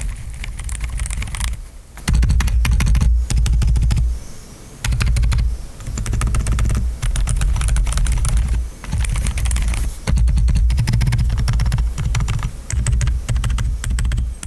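Akko × Dark Project KD5075 mechanical keyboard with Akko Fairy Silent switches being typed on in quick runs with short pauses. Each keystroke is a soft click with a dull low knock, recorded with the microphone gain turned all the way up because the switches are so quiet.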